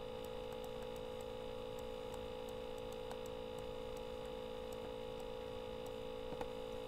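Steady electrical hum: several constant tones, the strongest fairly low and mid-pitched, over a faint hiss, with one small click near the end.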